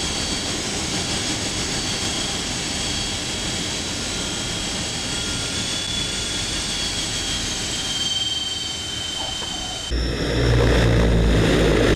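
C-160 Transall's two Rolls-Royce Tyne turboprops heard from inside the cockpit: a steady high whine over a rushing engine and propeller noise. About ten seconds in, it switches to a louder, deeper turboprop sound heard from outside the aircraft as it taxis.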